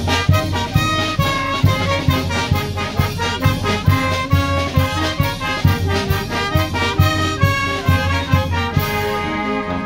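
Live brass band of trombones, saxophones, trumpets and low brass playing a lively tune over a steady beat. About nine seconds in, the beat drops out and the horns carry on with held notes.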